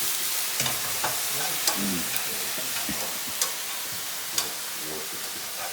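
Mushrooms with Worcestershire and steak sauce sizzling in a hot sauté pan over high heat, the sauces cooking down toward caramelizing. There is a steady frying hiss throughout, with a few sharp clicks of the utensil stirring against the pan.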